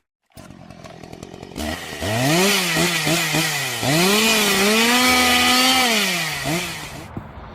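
A motorised cutting tool running, its motor whine rising and falling in pitch over a harsh grinding noise, played as the sound of the horse being minced. It starts about one and a half seconds in after a moment of silence and dies away near the end.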